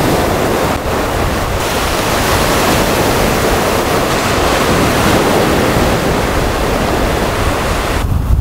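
Sea waves breaking and washing up a sand beach, with strong wind buffeting the microphone in a low rumble. About eight seconds in the surf drops away, leaving mostly the wind rumble.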